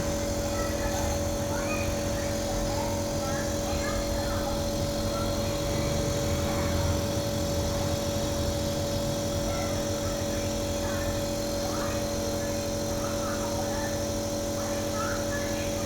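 Nebulizer's electric air compressor running with a steady, even hum that holds at one pitch.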